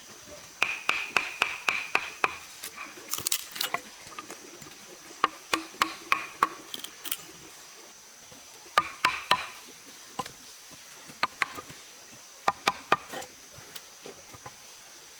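A series of irregular sharp knocks and taps, some in quick clusters and a few with a brief ring, over a faint steady high-pitched hum.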